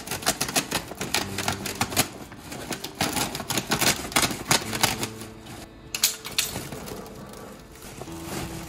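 Cloth being ripped by hand, heard as runs of rapid crackling tears in several pulls, thinning out near the end. Steady low music tones hold underneath.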